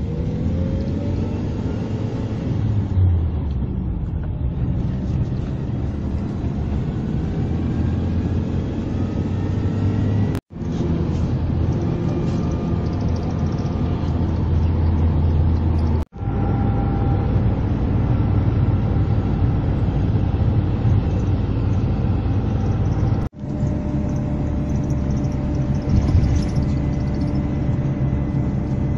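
Engine and road noise inside a moving bus: a steady low rumble. It breaks off abruptly three times where the recording is cut and joined.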